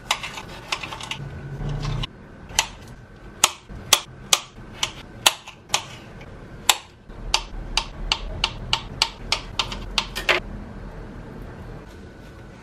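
Kitchen knife chopping on a cutting board: a run of sharp, irregular knocks, a few a second, that stops about ten seconds in.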